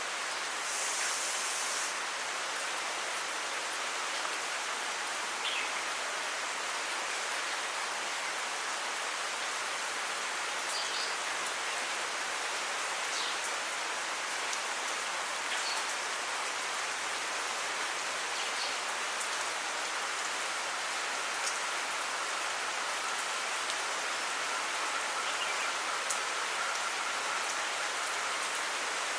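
Heavy monsoon rain falling steadily: an even hiss of rain pattering on surfaces, with a few faint brief high sounds on top.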